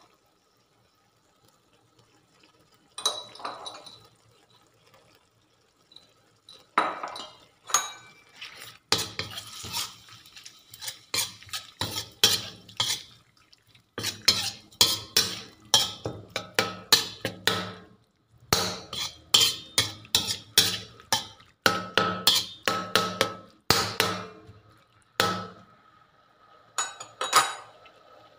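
Metal spatula scraping and clanking against a wok while stir-frying ground meat. One stroke comes about three seconds in and a few more follow, then a steady run of quick strokes, several a second, broken by short pauses.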